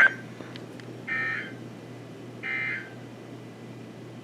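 NOAA Weather Radio EAS end-of-message (EOM) code: short, harsh digital data bursts, repeated three times to mark the end of a warning broadcast. The last of the first burst cuts off at the start, and the second and third come about one and two and a half seconds in.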